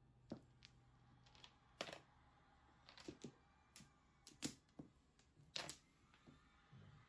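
Mahjong tiles clicking and clacking as they are drawn, set down on the felt table and knocked against each other in the players' hands: sharp, irregular clicks, a few much louder than the rest.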